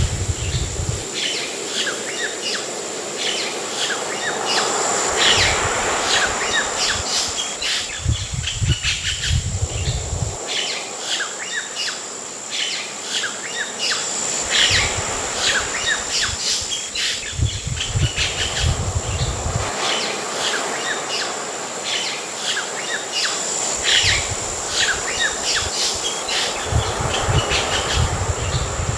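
Ambient nature soundscape of birds chirping and singing over ocean surf, with the waves swelling and falling back every several seconds with a deep rumble. A steady high insect drone runs underneath.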